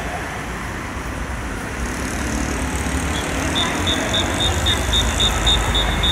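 City road traffic noise, a steady rumble with hiss. About halfway through, a quick run of short, high electronic beeps starts, roughly three a second.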